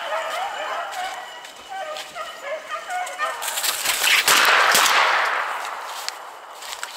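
A pack of beagles baying as they run a rabbit, a string of wavering, yelping calls. About three and a half seconds in, a loud rustling rush of noise swells up and fades over a couple of seconds.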